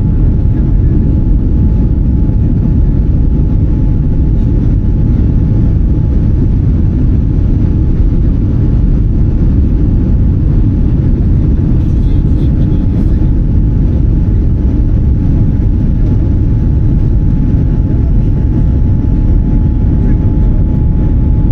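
Steady, loud cabin rumble of a Boeing 787 Dreamliner climbing after takeoff: engine and airflow noise heard from inside the passenger cabin, with a faint steady tone running above it.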